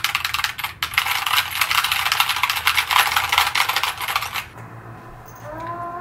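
Rapid, dense clicking of typing on a compact mechanical keyboard for about four and a half seconds, which then stops. Near the end a cat meows once.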